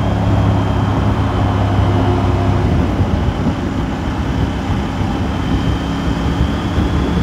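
Triumph Tiger 900's three-cylinder engine running steadily at road speed, with a steady rush of wind and road noise over it.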